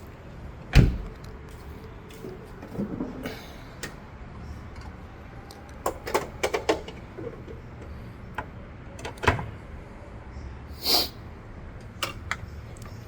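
Scattered knocks and clicks of parts being handled on a car, with a heavy thump about a second in and a quick run of clicks about six seconds in.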